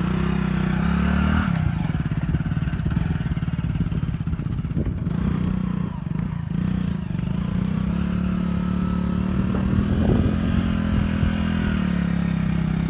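Hero Splendor motorcycle's single-cylinder engine running under throttle while the bike rides through rough ploughed soil. Its note rises and falls with the throttle, revving up about a second in and again near ten seconds.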